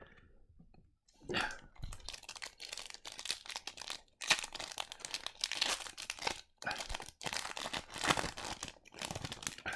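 Foil trading-card pack wrapper crinkling and being torn open, a dense crackle with two brief pauses.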